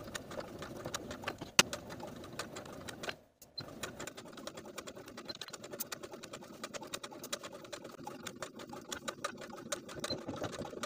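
Domestic sewing machine stitching through layers of chambray: a quick, even run of needle clicks over the motor's hum, with one sharper click about a second and a half in and a brief stop about three seconds in before it runs on.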